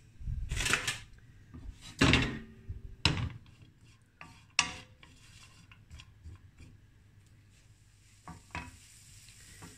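A stainless steel skillet of diced guanciale clanking and scraping on a gas hob's cast-iron grate as it is set down and shifted, several sharp metallic knocks in the first five seconds, one ringing briefly. Near the end a faint steady hiss sets in as the pork fat starts to sizzle.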